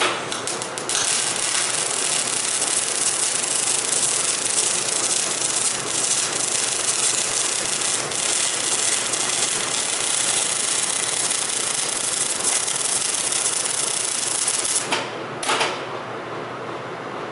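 MIG welding arc crackling and sizzling as a bead is run on a steel frame: after a brief stuttering start it runs steadily for about fourteen seconds, stops, and a short second burst of arc follows a moment later.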